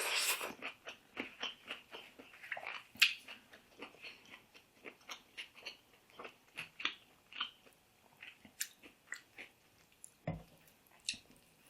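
Close-up eating sounds of a meal of green mango salad and fried fish: irregular crunchy bites, chewing and wet mouth clicks. There is a single soft thump a little past ten seconds in.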